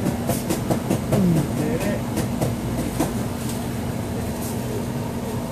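A man's voice mumbling and laughing under his breath, mostly in the first two seconds, over a loud steady mechanical hum with a constant low tone. A few faint clicks.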